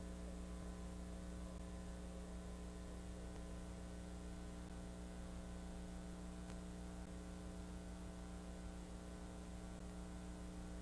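Steady electrical mains hum: a low buzz of several even tones held over a faint hiss, unchanging throughout.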